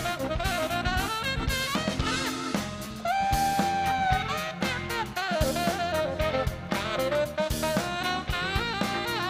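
Live tenor saxophone solo over drums and keyboard, the sax bending through quick phrases and holding one long note about three seconds in.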